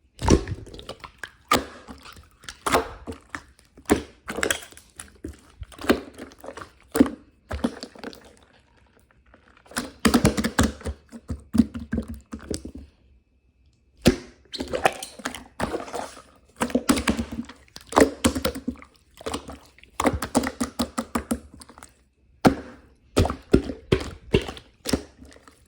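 Irregular clusters of short knocks, taps and thunks on hard surfaces, with brief pauses about 8 and 13 seconds in.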